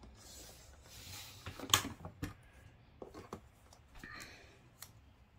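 Sliding paper trimmer cutting a piece of patterned paper in half: a scraping hiss as the cutting head runs along the rail, then a sharp click, the loudest sound, a little under two seconds in, followed by a few lighter clicks and a short scrape.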